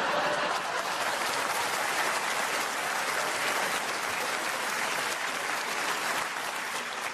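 Theatre audience applauding and laughing after a comedy punchline, a steady wash of clapping that dies away near the end.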